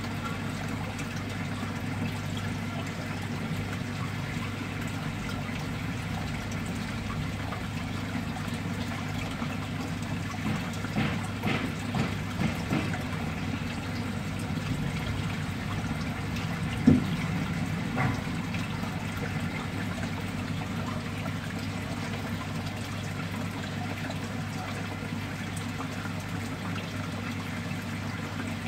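Water trickling steadily through a mud crab fattening tank, over a steady low hum. A few light knocks come around the middle, then one sharper knock.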